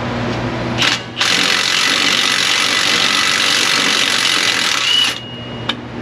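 Mid-torque impact wrench spinning out a bolt that has already been broken loose by hand, so it runs without hammering: a short blip of the trigger, then about four seconds of steady running that stops sharply near the end.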